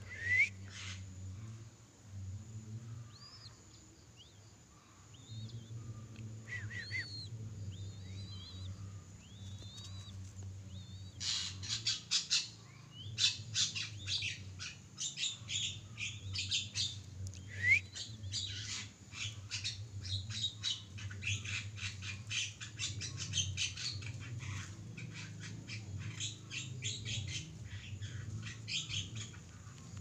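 Birds chirping: a few short, thin rising whistled calls, then from about eleven seconds in a dense, rapid chattering of sharp chirps, over a steady low hum.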